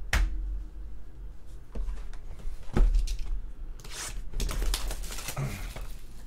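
A cardboard Panini Totally Certified basketball hobby box handled on a tabletop. There is a knock near the start and another just under 3 s in, then scraping and rustling as the box is slid across the table mat.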